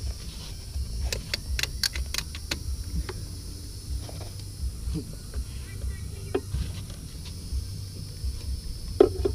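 Sharp metallic clicks and taps of hand tools and loose parts while an engine bay is being taken apart: a quick run of clicks about a second in, scattered knocks after and a louder knock near the end, over a steady low rumble.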